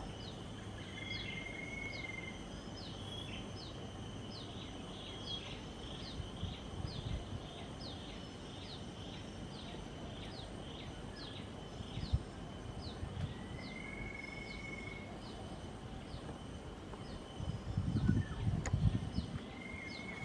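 Wild birdsong in a wetland: a bird repeats short, high, falling notes about twice a second, and a longer whistled note sounds three times, over a steady high insect hum. A low rumble of wind or handling comes near the end.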